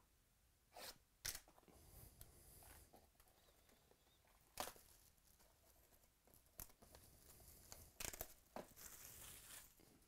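Faint tearing and crinkling of trading card pack wrappers being opened by hand, with a few sharp clicks and a longer crinkle near the end.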